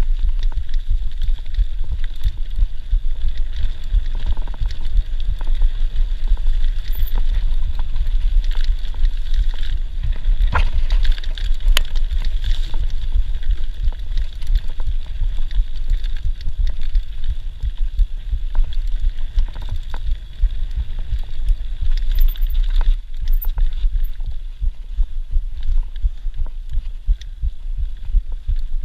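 Mountain bike being ridden over a rough dirt singletrack, heard from a rider-mounted camera: a constant, uneven low rumble and buffeting with scattered rattles and clicks from the bike jolting over the bumps.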